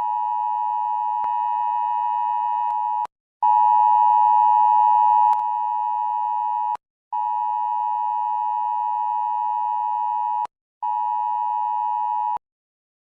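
Emergency Alert System-style attention tone: a steady, piercing electronic tone sounding in four long beeps of about three seconds each, the last one shorter, with short gaps between. During the first half of the second beep it is louder, with a hiss under it.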